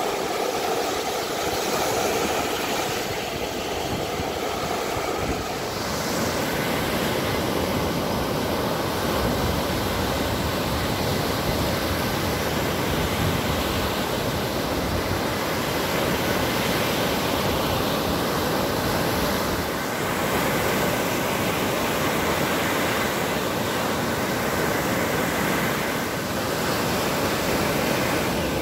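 Lake Michigan waves breaking and washing up a sandy beach: a steady surf noise.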